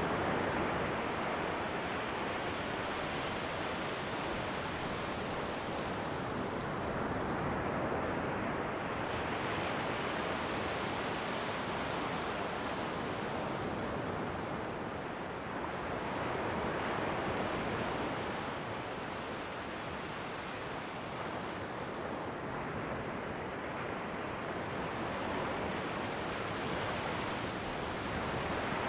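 Ocean waves washing in, a steady rush of surf that swells and ebbs about every eight or nine seconds.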